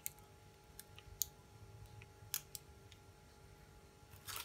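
Quiet room tone with a faint steady hum, broken by a handful of small sharp clicks and a short crinkle near the end as a paper piping cone is squeezed and moved over the baking paper and plastic wrap.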